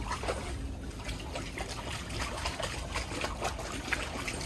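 Water trickling and splashing into a shallow portable dog pool, a steady run of small irregular splashes.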